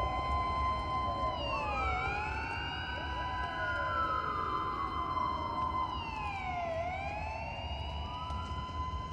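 Police sirens wailing, their pitch sweeping slowly down and up, dipping about two seconds in and again near the end, over a steady high tone and a low rumble.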